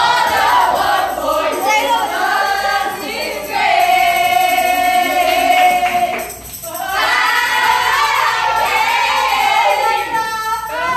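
A group of young women and men singing together loudly, with a tambourine shaken along, and one long held note near the middle.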